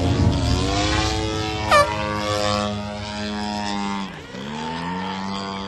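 Radio-controlled aerobatic plane's motor running with its pitch shifting as it manoeuvres, dropping steeply just after four seconds in and climbing back. About two seconds in, a brief shrill whistle falls sharply in pitch.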